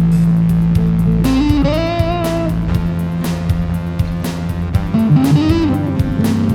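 Rock music: electric guitar and bass over an even beat. Bending, wavering held notes come in about a second in and again about five seconds in.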